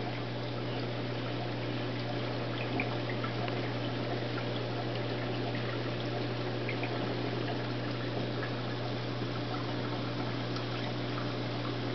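Reef aquarium's water circulation running: a steady trickle and splash of moving water over a steady low hum.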